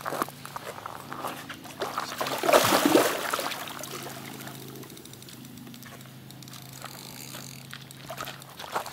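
A hooked carp splashing and swirling at the surface beside a landing net, with one loud surge of splashing about two and a half seconds in and smaller slaps and water lapping either side. A faint steady low hum runs underneath.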